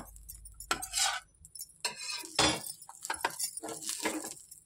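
Kitchen utensils clinking and scraping against a frying pan and a steel plate as a cooked dosa is moved onto the plate: a string of sharp knocks and clinks, the loudest about two and a half seconds in.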